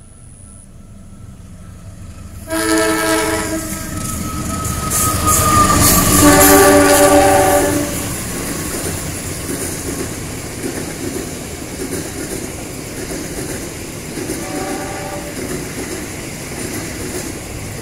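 Passenger train hauled by a CC 201 diesel-electric locomotive passing close by, its horn sounding three times: a short blast about two and a half seconds in, a longer, loudest blast around six to eight seconds, and a brief one near fifteen seconds. Under the horn runs the steady rumble and clickety-clack of the carriages on the rails.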